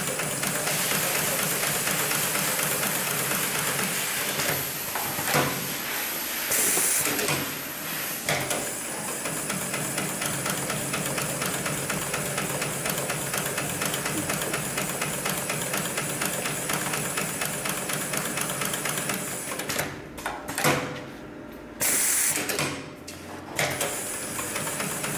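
Hightex GLK700-6040 industrial automatic pattern sewing machine stitching at high speed: a fast, even run of needle strokes. There is a short hiss about seven seconds in. Near the end the machine stops and restarts a few times, with another short hiss.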